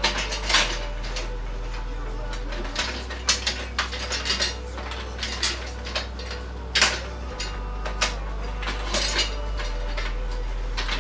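Small metal parts clinking and clattering as aluminium pieces, bolts and nuts are handled and fitted together by hand, in short irregular clinks.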